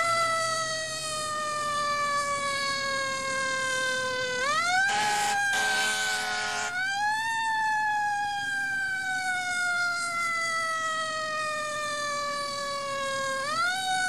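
Emergency-vehicle siren sound effect wailing: each cycle rises quickly and then falls slowly. A short harsh blast comes about five seconds in.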